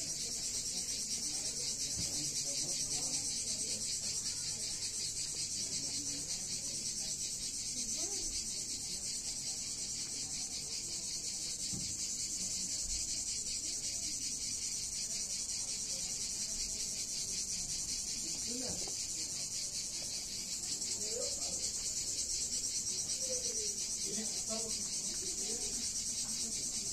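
Steady, high-pitched chorus of insects chirring with a fast, fine pulse. It eases a little in the middle and swells again about twenty seconds in.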